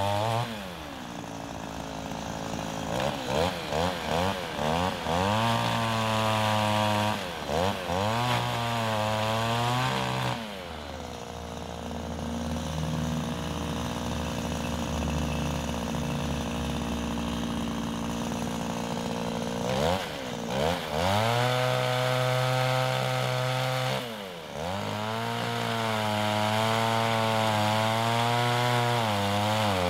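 Husqvarna electric pole saw (power pruner) whining at full speed, its pitch dipping and climbing with several quick trigger blips in the first ten seconds. In the middle it runs lower and rougher for about ten seconds as the chain cuts a branch, then winds back up to a high steady whine with one short dip.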